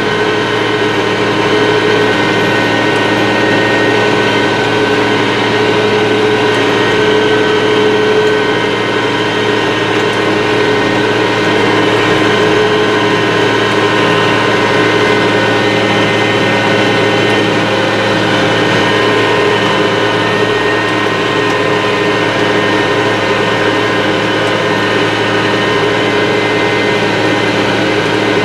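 IH 3788 2+2 tractor's six-cylinder turbo-diesel engine running steadily under load while pulling a chisel plow through cornstalks, heard from inside the cab. A constant drone with several steady tones and no change in pitch.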